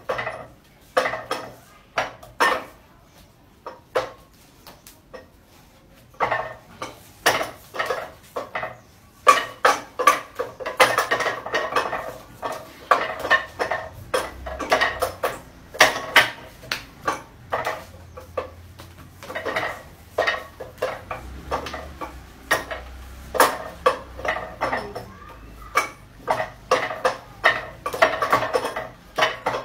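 Wing Chun wooden dummy knocked and clacked by a man's hands and forearms striking its wooden arms, in quick flurries of sharp hits. There is a short lull about three seconds in.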